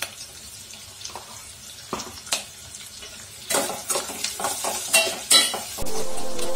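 Chopped onions and chillies frying softly in oil in a stainless steel pot. A metal slotted spoon then stirs and scrapes against the pot, a run of clatters starting about three and a half seconds in. Background music starts near the end.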